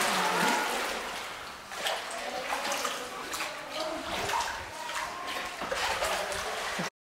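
Water splashing and sloshing around a small rowboat moving through a cave, in irregular strokes over a steady wash. The sound cuts off suddenly near the end.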